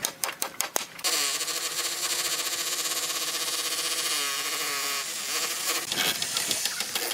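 Quick run of sharp knocks, about six or seven a second, then a power tool motor runs steadily for about four seconds with its pitch wavering partway through, and knocks again near the end.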